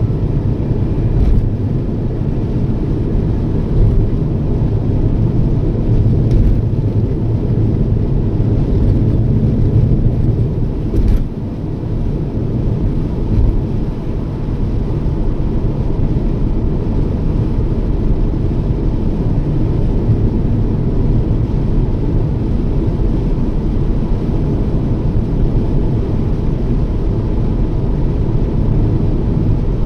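Toyota Yaris driving at steady speed: a constant low rumble of road and engine noise.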